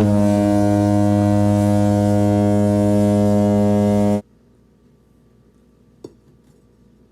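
A loud, steady, low horn-like buzzing tone, held for about four seconds and cut off abruptly, followed by two faint clicks.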